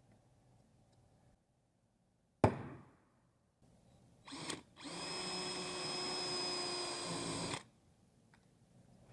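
A sharp knock, then a small machine runs for about two and a half seconds with a steady whine over a rushing noise, and cuts off suddenly.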